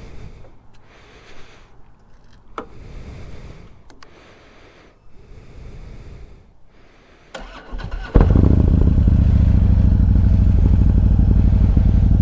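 Quiet with a few faint clicks, then the Harley-Davidson Road King's V-twin engine starts about eight seconds in and settles into a steady, loud idle with a low, even beat.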